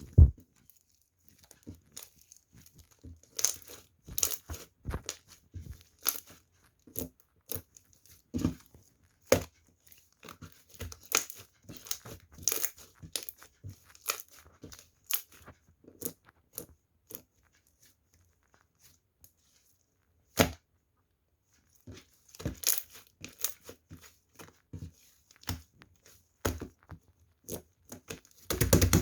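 Homemade slime being squished, stretched and poked by hand, giving irregular sticky pops and crackles, with a pause of several seconds about two-thirds of the way through.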